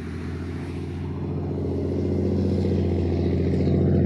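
Aircraft engines running with a steady, even-pitched hum that grows slowly louder.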